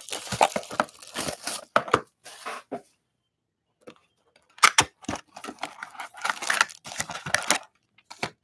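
Plastic wrapping on a trading card box being torn open and crinkled: two spells of ripping and rustling, with a sharp snap between them about halfway in.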